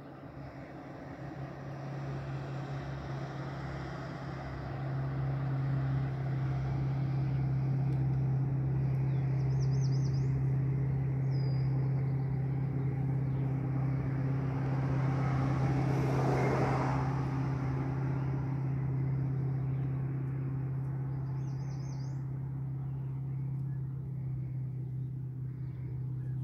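A steady low engine drone from a motor out of sight, with a brief rush of noise about sixteen seconds in. Faint bird chirps come twice.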